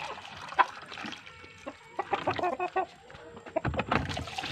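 Rhode Island Red hens clucking, a run of short calls about two seconds in, with a short dull thud near the end.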